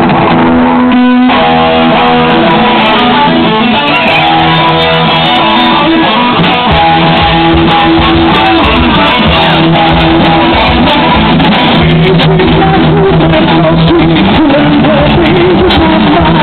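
Live band music led by electric guitar holding sustained notes, with bass guitar underneath, at a steady loud level.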